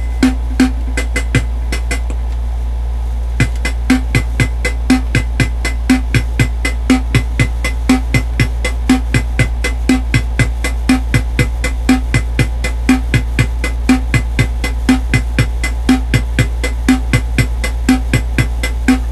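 Electronic keyboard's built-in drum machine playing a steady beat, about two low kick-like hits a second with quicker ticks between, over a steady low hum. The beat drops out for about two seconds near the start, then resumes.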